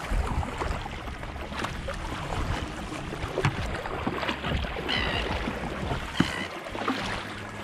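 Kayak paddle blades splashing in choppy sea water, stroke after stroke. Two brief high squeaks come about five and six seconds in.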